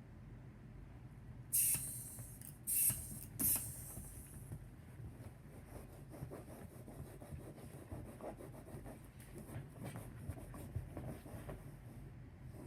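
Dachshund puppy at play: ongoing scratching and rubbing noises, with three short, loud, hissy rustles in the first few seconds.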